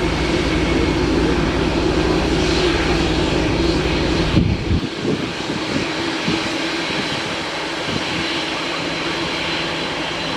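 Jet airliner engines running, a steady rush with a low hum; the low hum drops away suddenly about four and a half seconds in and the rush carries on.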